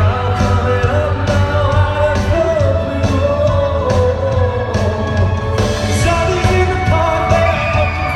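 A man singing a rock song live over band accompaniment with a steady beat.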